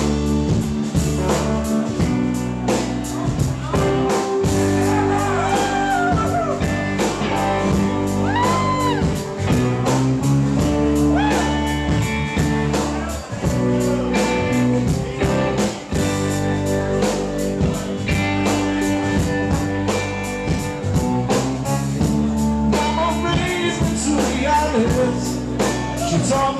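Live rock band playing a song: electric guitars and acoustic guitar over a steady drum beat, with a melody line bending in pitch above the band.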